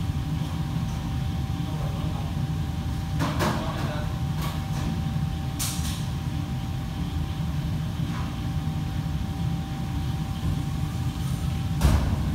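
Steady low rumble of kitchen fans and appliances with a thin steady whine over it, and a few scattered clatters of kitchenware, the loudest near the end.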